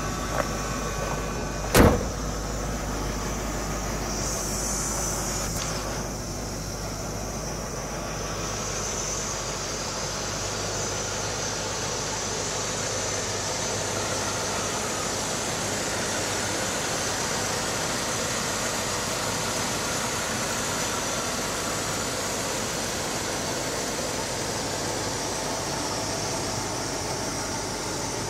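The heavy door of a 1976 Lincoln Continental Mark IV slamming shut once, a single sharp thump about two seconds in. Steady background noise runs under it.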